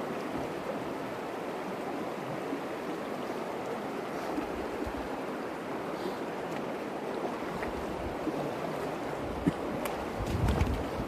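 The Virgin River running steadily over rocks in a shallow, rippling stretch. Near the end come a few louder low buffets of wind on the microphone.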